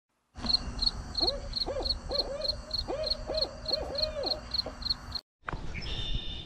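A series of short hooting calls over a steady, rhythmic high chirp that repeats about three times a second. Both cut off abruptly about five seconds in.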